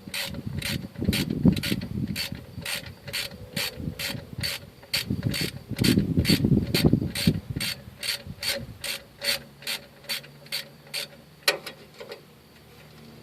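Ratchet wrench with a short 10 mm socket working the wheel cylinder bolts on a 1996 Ford F250's rear drum brake, the pawl clicking evenly about two or three times a second and stopping near the end. Twice, louder rough handling noise from the tool and brake parts rises over the clicking.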